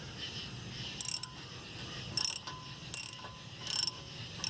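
Hand socket ratchet clicking in four short bursts about a second apart as the wheel bearing hub's bolts are tightened, drawing the new bearing into its knuckle bore.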